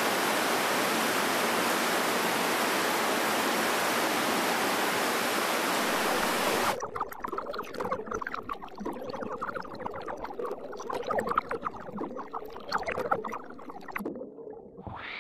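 Steady rush of an underground river echoing in a marble cave. About seven seconds in it cuts off suddenly, giving way to quieter scattered knocks and scrapes.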